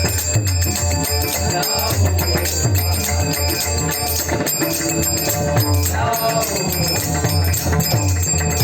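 Bhairavi bhajan music: small hand cymbals jingling in a steady rhythm over a continuous low tone, with melodic instruments.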